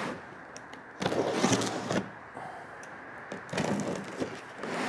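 Large cardboard box being opened by hand: the top flaps are pulled and worked open in three crackling, rustling bursts, the first, about a second in, the loudest.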